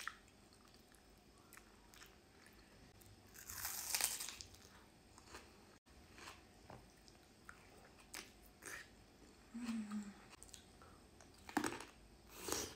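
Close-miked eating sounds: chewing and wet mouth clicks while eating pickled herring fillet, with a louder noisy burst about four seconds in. Near the end comes a loud crunchy bite into a pickled cucumber.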